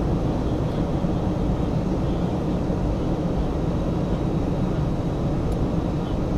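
Jet airliner cabin noise during the descent to landing: the engines and rushing air make a steady, even din, heaviest in the low range.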